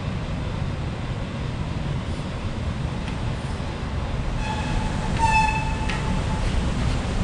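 Steady low traffic rumble, with a vehicle horn sounding for about a second and a half, about four seconds in.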